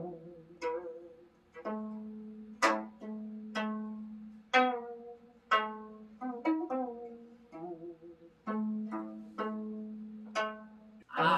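Gayageum, the Korean twelve-string zither, plucked in a slow melody: single notes about one to two a second, each ringing and fading, over a held lower note.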